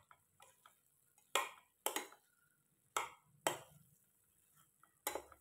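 Spatula stirring chicken in a stainless steel pan, knocking and scraping against the metal in a series of sharp taps, several loud ones about half a second apart.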